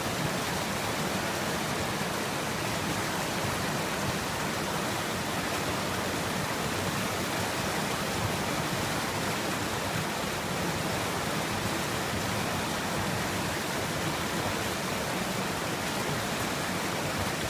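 Fast-flowing river rushing, a steady even sound of water with no breaks.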